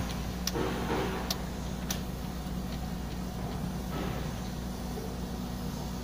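A few sharp metallic clicks of a wrench on the fuel filter head fittings of a diesel engine, in the first two seconds, over a steady low machine hum.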